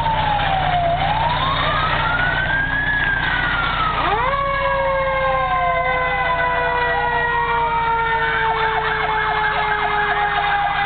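Fire engine sirens: a wailing siren rising and falling in pitch, joined about four seconds in by a second siren tone that sweeps up sharply and then slowly winds down in pitch, over a steady low engine rumble.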